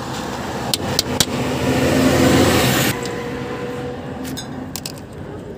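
A motor vehicle engine running close by, building up over the first three seconds and then dropping away abruptly, with a few sharp metallic clicks. Later come quieter clicks of pliers on the drum brake shoes and springs.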